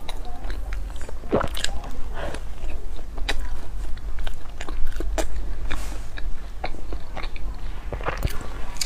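Close-miked eating of pork floss bread: biting and chewing with irregular wet mouth clicks and smacks.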